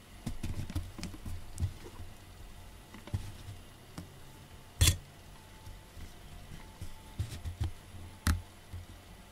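A hand patting and stroking a cat's fur close to the microphone: soft, irregular bumps and rustles, with two sharp clicks, one just before halfway and one near the end.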